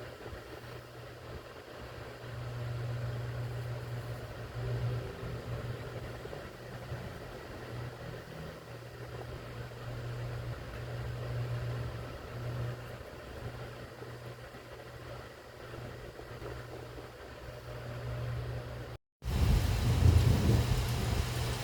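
A steady low rumble that swells and fades, under a faint hiss. After a short break about 19 seconds in, heavy rain comes in louder, with thunder rumbling.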